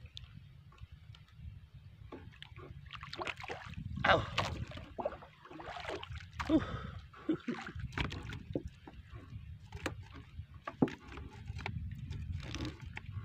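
Water sloshing and lapping against the hull of a small wooden outrigger canoe, with scattered light knocks and clicks as a handline and its catch are handled in the boat.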